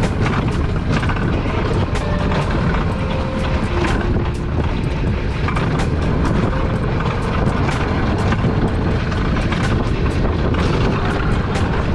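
Alpine coaster sled running down its rail track: a loud, steady rumble of the wheels with frequent sharp clicks and rattles.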